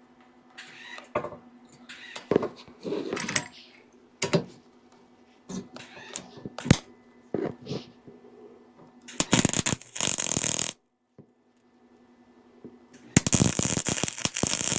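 MIG welding arc crackling in two short runs of about a second and a half and two seconds in the second half, each stopping abruptly when the trigger is released, as holes and cracks in a broken mini bike are welded up. Before them come scattered clicks and scrapes of the torch and workpiece being positioned, over a steady low hum.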